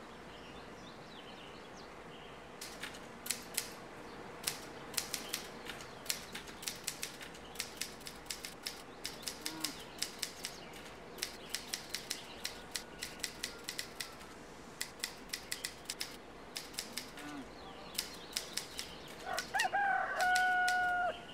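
Manual typewriter keys struck in irregular runs of sharp clacks with short pauses, starting about three seconds in. Near the end a rooster crows once, the loudest sound.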